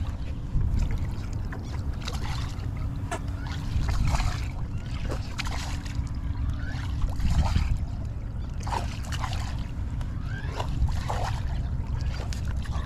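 Steady low rumble of wind and water around a bass boat, with an electric trolling motor humming until about halfway through. Scattered light clicks and ticks come from a baitcasting rod and reel working a topwater walking bait.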